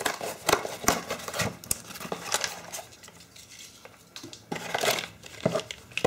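A parcel's packaging being torn open and handled by hand: crinkling and rustling with many sharp little clicks and knocks, dying down for a second or so in the middle, then picking up again.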